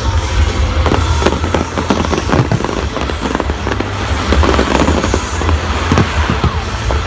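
Fireworks going off in quick succession, many sharp bangs and crackles, with rock music playing underneath.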